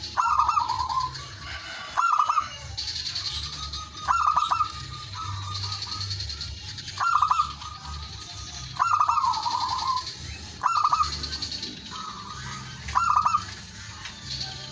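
Male zebra dove cooing its repeated call, a short burst of quick notes trailing into a lower purr, about every two seconds.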